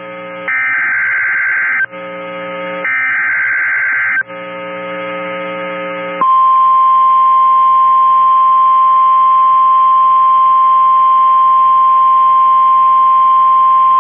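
Emergency Alert System activation on NOAA Weather Radio. Two harsh digital data bursts of the SAME header, each about 1.5 s long, end the three-burst header, with a low buzz between them. About six seconds in, the steady single-pitch 1050 Hz warning alarm tone starts and holds.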